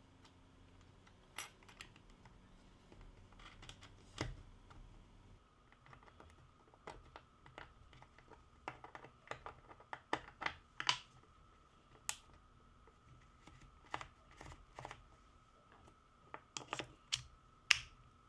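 Irregular small clicks and taps of plastic and metal drill parts being fitted together by hand: the clutch collar and gear housing of a Makita DF458D cordless drill being reassembled. A few clicks early on, then a denser run of clicks from about seven seconds in.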